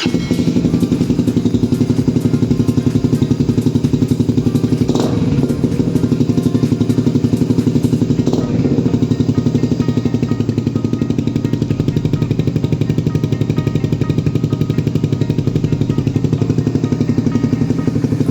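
Suzuki Raider Fi 150's single-cylinder four-stroke engine running steadily through an aftermarket Akrapovic exhaust with a 51 mm elbow, a loud, rapid, even exhaust pulse.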